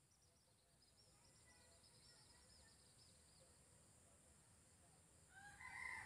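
A rooster crowing once near the end, the loudest sound here. Before it, a faint rapid series of high chirps from a small bird, over a steady high hiss.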